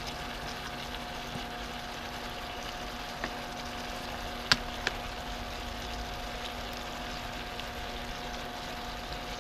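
Noodle soup simmering in a wok on a gas burner: a steady bubbling hiss. A few short sharp clicks come around the middle.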